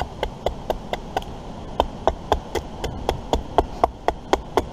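Rapid, light chopping strokes on wood, about four a second, with a short pause a little over a second in.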